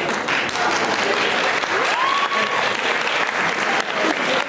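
Audience applauding in a large hall. About two seconds in, one rising call is heard above the clapping and held briefly.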